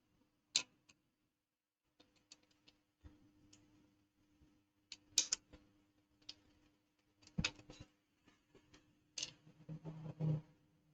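Scattered small clicks and taps of tools and parts being handled on a repair bench, irregularly spaced with a short cluster near the end, over a faint steady hum.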